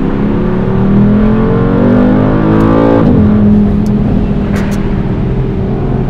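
Brabus 800 Black Ops twin-turbo V8, heard from inside the cabin, accelerating hard. The engine note climbs for about three seconds, drops sharply at an upshift, then holds steady.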